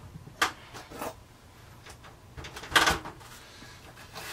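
A few sharp knocks and a louder clatter near the end: hard objects being handled and set down, such as tools or fixture parts.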